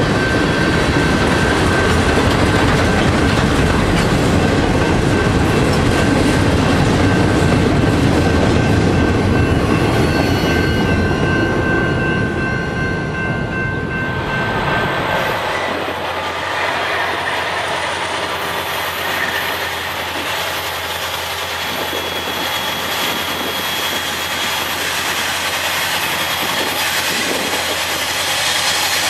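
Freight cars of a Norfolk Southern train rolling past on the rails, with a steady high wheel squeal; the rolling sound fades out about halfway through. The sound then changes abruptly to a quieter steady background as a diesel locomotive approaches, a little louder near the end.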